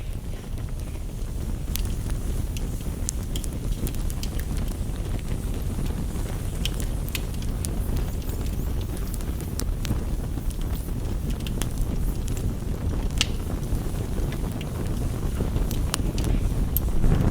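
Campfire crackling, with sharp irregular pops and snaps over a steady low rumble.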